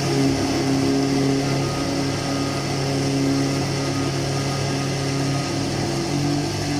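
Electric countertop blender running steadily at full speed, grinding soaked rice with water into a paste, its motor giving a loud, even hum.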